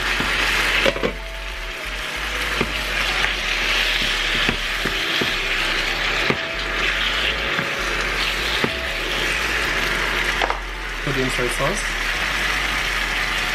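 Chicken pieces frying in a sauce in a nonstick pan with a steady sizzle. A wooden spoon stirring knocks against the pan every second or two.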